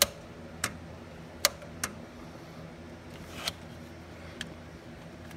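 About six sharp, irregular clicks and taps as a hand handles the fuel shutoff solenoid and its bungee-strapped linkage on a diesel engine, over a faint steady low hum.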